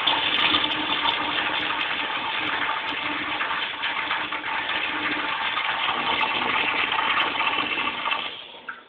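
American Standard urinal flushing: a steady rush of water through the bowl that dies away about eight seconds in.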